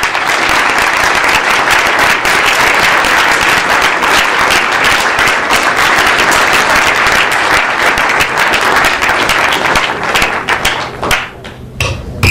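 Audience applauding steadily with dense clapping, dying away near the end.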